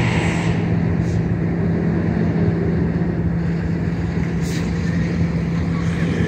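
Diesel locomotive engine running at a standstill: a steady drone with a constant low hum.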